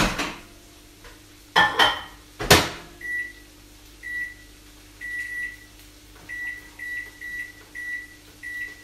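A few knocks and clunks as the microwave oven is loaded and shut, then about eight short, same-pitched beeps from its keypad as the cooking time is set.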